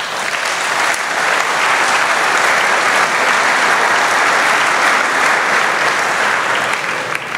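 A large seated audience applauding, many hands clapping together; it builds quickly at the start, holds steady, and tapers off near the end.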